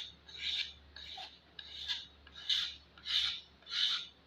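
Pocket knife blade scraped along a wooden hatchet handle, held square to the wood to strip off the varnish finish, in repeated strokes about one and a half a second.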